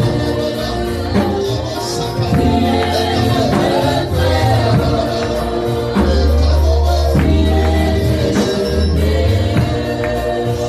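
Gospel worship music: a choir singing over a band with a strong bass line and a tambourine keeping a steady beat.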